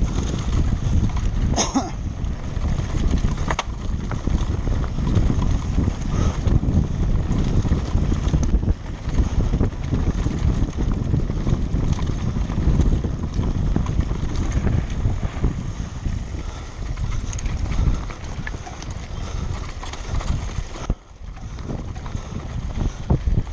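Mountain bike rattling and clattering over rough ground at speed, with wind rushing over the microphone; the noise drops briefly near the end.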